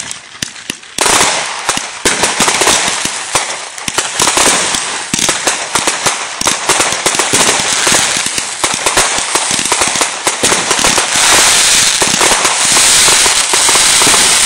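Consumer 1.4G fireworks firing: a few scattered pops, then from about a second in a dense, unbroken rattle of launches and bursting, crackling stars. The rattle grows fullest near the end.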